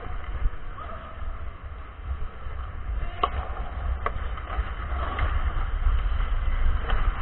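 Ice hockey sounds heard from a skater's helmet camera: wind rumbling on the microphone as the wearer skates, skate blades on the ice, and a few sharp clacks of sticks on the puck, the clearest about three seconds in.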